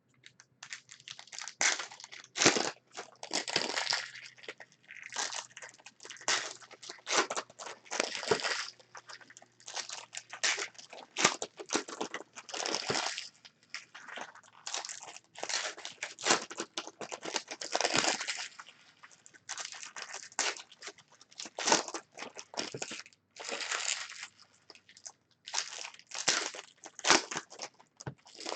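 Foil trading card pack wrappers crinkling and tearing as packs of Donruss Optic baseball cards are handled and ripped open by hand: a rapid, irregular run of crackles.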